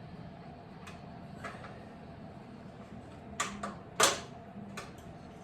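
A few sharp metallic clicks and clinks of hand tools on bolts, the loudest about four seconds in, over a low steady background hum.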